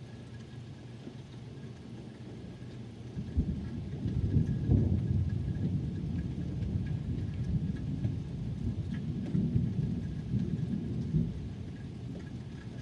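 Thunder over steady rain: a sudden clap about three seconds in, then a long, low rumble that dies away near the end.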